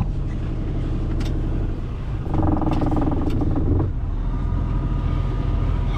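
Sailboat's auxiliary engine running steadily while it is shifted into gear; for about a second and a half in the middle its note grows louder and higher.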